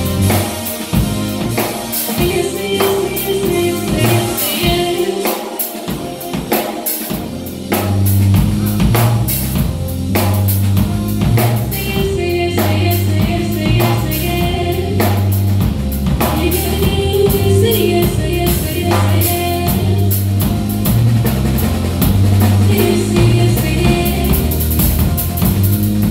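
Live band music: a drum kit keeping a beat, with electronic keyboard and a bass line. The low bass notes come in fully about eight seconds in and carry on under the drums.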